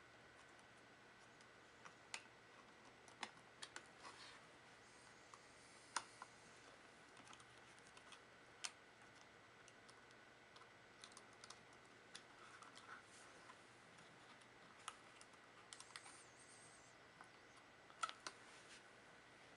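Faint, scattered clicks and light taps of hands working on a laptop, a few sharper ones standing out, over a faint steady high-pitched tone.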